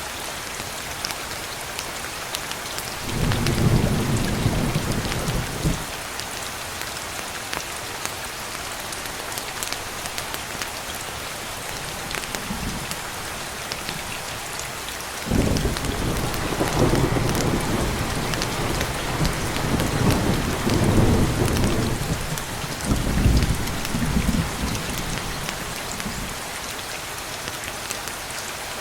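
Steady rain with two rolls of thunder: a short rumble about three seconds in, and a longer, louder rolling rumble from about halfway through that fades out near the end.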